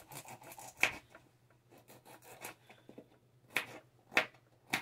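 Carrots being prepared by hand in a kitchen: scraping and rubbing, with four sharp knocks spread through.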